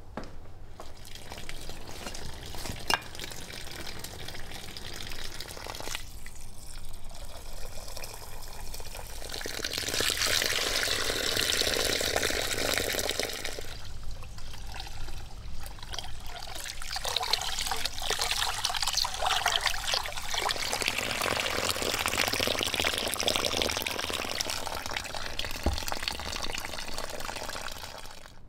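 Water pouring and splashing in two long stretches, with quieter handling sounds before them.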